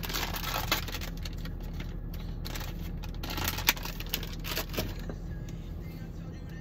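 Small clicks, taps and rattles of makeup items being handled and rummaged through, with a sharp click about three and a half seconds in, over the steady low hum of a car.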